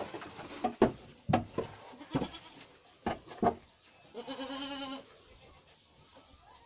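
A series of sharp knocks and clatters, followed about four seconds in by a goat giving one quavering bleat that lasts under a second.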